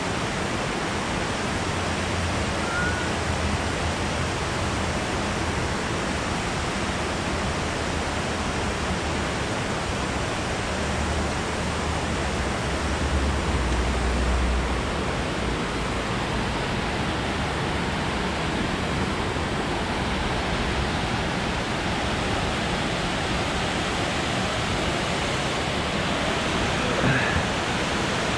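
Water pouring over a dam spillway: a steady, even rush, with a brief low rumble about halfway through.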